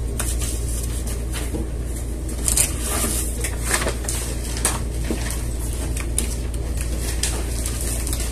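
Handling noise: rustling with scattered light knocks and clicks as papers and objects are moved about on an office desk, over a steady low hum.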